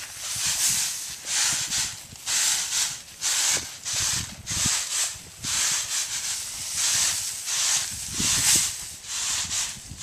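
Threshed rice grain swishing and hissing in a shallow round woven bamboo winnowing tray as it is scooped, tossed and shaken, in a steady rhythm of swishes about once or twice a second.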